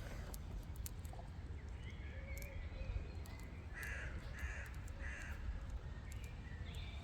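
Crows cawing a few times around the middle, short rasping calls over a steady low rumble of wind on the microphone.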